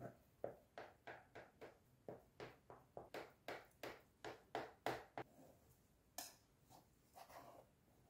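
Table knife cutting a frosted cake in a metal baking pan: a run of faint short strokes, about three or four a second, then a pause and a few slower sounds near the end.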